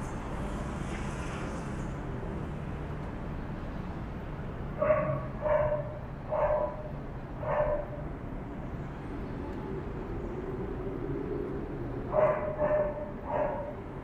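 A dog barking: four barks about five seconds in, then three more near the end, over steady background noise.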